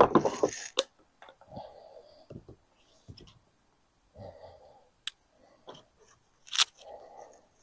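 Handling noise from a wheeled roller bag being tipped over and moved about on a folding table: a string of separate knocks and clicks with short rustles between them. The loudest knock and scuffle come right at the start, with another sharp click near the end.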